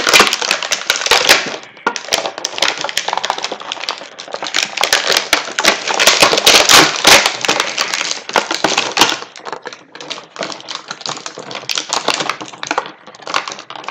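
Stiff plastic packaging of an action figure being handled and pulled apart as the figure is worked free of its tray: rapid, irregular clicking and crackling, busiest in the middle and thinning out near the end.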